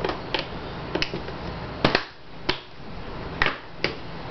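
Sharp plastic clicks and knocks from a Plano plastic lure box being shut and handled on a wooden desk, its latches snapping. About seven clicks, unevenly spaced, the loudest about two seconds in.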